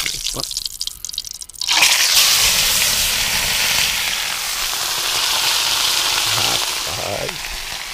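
Fish frying in a pan of hot oil. After a few scattered crackles, a loud, dense sizzle suddenly starts about two seconds in as the fish meets the oil, then goes on steadily, slowly easing.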